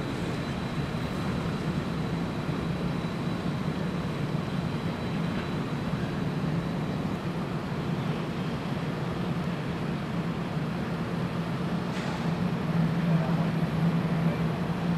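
A string of Norfolk Southern diesel locomotives running light at slow speed, their engines giving a steady low drone that grows a little louder near the end as they come closer.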